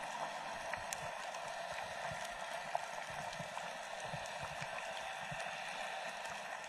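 Underwater ambience: a steady watery hiss with scattered faint clicks and crackles.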